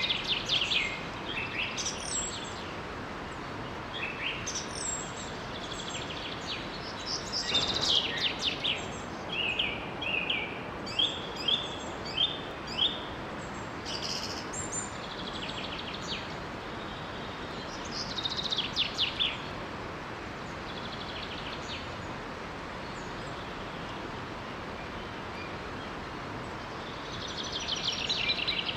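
Songbirds chirping and trilling in short phrases, including a quick run of about five repeated chirps, over the steady rush of a small forest waterfall.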